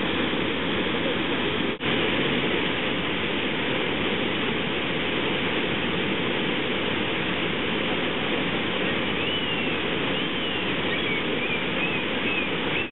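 Steady rush of white water at Brooks Falls, cutting out for an instant about two seconds in.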